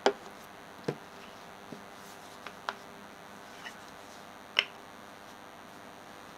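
A series of short, light knocks and clicks as a leather lens case and two lens caps are set down on a cloth-covered table, about seven in all. The loudest comes at the very start and another about four and a half seconds in.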